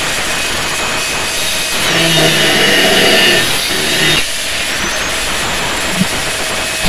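Handheld angle grinder running and grinding the steel of a meat cleaver blank. It gets louder for about two seconds midway, with a steady whine, as the disc bears hard on the metal.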